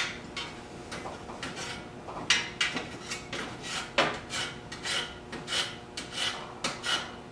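Hand tools scraping and knocking against metal engine parts in a string of short, irregular strokes, about one or two a second, with sharper ones about two and four seconds in.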